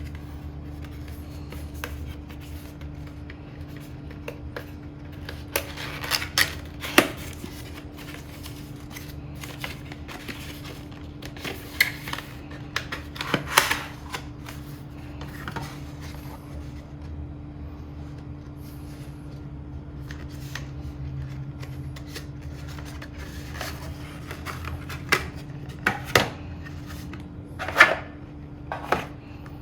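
Hands handling small product packaging, with scattered clicks, taps and rustles in clusters, over a steady low hum.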